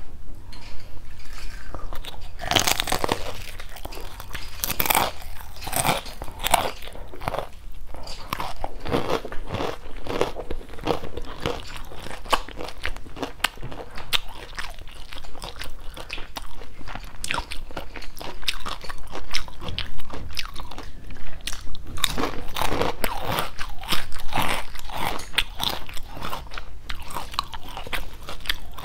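Crunching and chewing of crispy deep-fried shrimp-and-pork wontons, bite after bite, close on a clip-on microphone.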